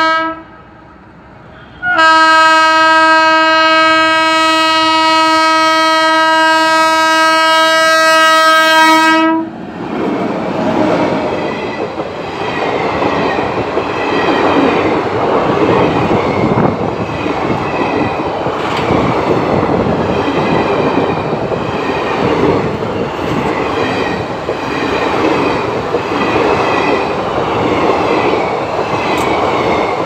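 WAP-7 electric locomotive's horn: a blast cut off just after the start, then one long steady blast of about seven seconds. Then the passenger coaches run past close by, with a steady rumble and wheels clattering over the rail joints.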